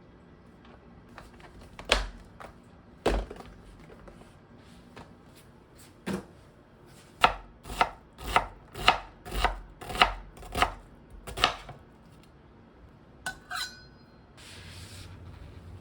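Kitchen knife chopping food on a cutting board: a few single strokes, then a quick run of about ten chops at roughly two to three a second. Near the end come two light clinks with a brief ringing, then a soft rustle.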